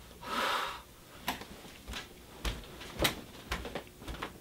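Footsteps on a wooden floor, a knock about every half second, after a brief rustle at the start.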